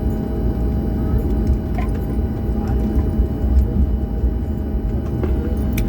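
Airliner cabin noise after landing: a steady low rumble of the jet engines and air system heard from inside the passenger cabin, with a faint steady hum and a single click near the end.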